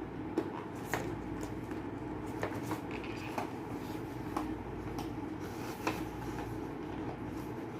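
Scattered light clicks and taps from handling the packaging and accessories of a newly unboxed laptop, over a steady low background hum.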